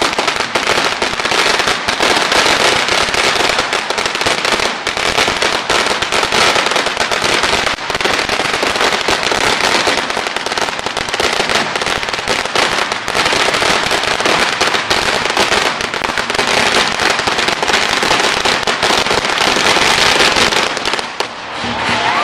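A long string of firecrackers hung from a pole going off in a rapid, unbroken crackle of bangs, stopping near the end.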